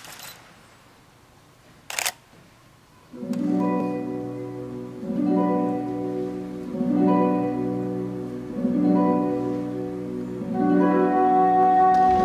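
Near quiet with a single sharp click, then the skating program's music starts about three seconds in: soft pitched notes in short phrases that repeat every couple of seconds, growing fuller and louder near the end.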